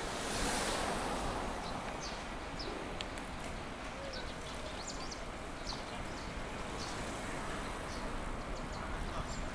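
Street ambience heard from a moving bicycle: a steady rush of road and air noise, a brief swell as something passes about half a second in, and scattered short high ticks.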